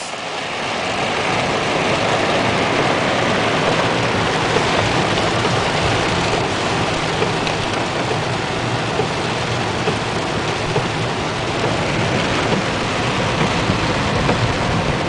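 Heavy thunderstorm rain pouring down, a steady loud hiss with no let-up.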